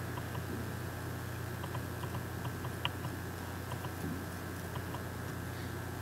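Steady low hum and hiss of the recording's room background, with a few faint clicks; the sharpest, about three seconds in, fits a computer mouse click on a button.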